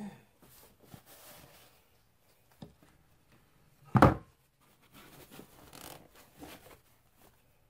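A wooden wire soap cutter and a soap loaf being handled: soft rubbing and rustling, with one sharp wooden knock about halfway through.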